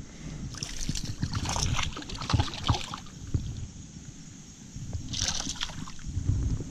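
Water splashing and sloshing in irregular short bursts, busiest over the first three seconds, with another brief splash about five seconds in.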